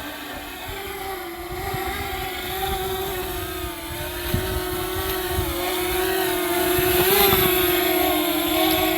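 FIMI X8 Mini V2 drone's propellers humming steadily, growing louder as it nears. Wind buffets the microphone underneath.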